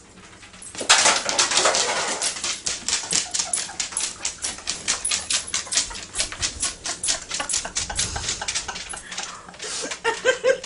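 Basset hound making a fast run of crisp clicks, about five or six a second, for most of the stretch, then a few short whines near the end.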